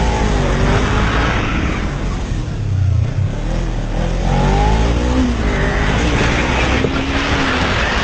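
Motorcycle engine running hard, its pitch rising and falling as the rider speeds up and eases off, over a steady low rumble and rushing noise.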